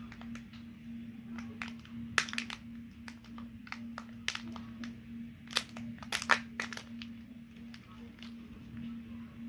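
Plastic Kinder Joy toy capsule being prised apart and the toy's plastic wrapper handled: irregular sharp clicks and crinkles, loudest about two seconds in and again from about five and a half to six and a half seconds in. A steady low hum runs underneath.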